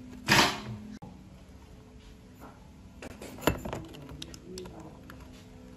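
Small-engine carburetor being taken apart by hand: the brass float bowl is pulled off the carburetor body and set down on a metal tray. There is a loud rasping scrape about half a second in, then a sharp metallic clink about three and a half seconds in, followed by a few lighter ticks.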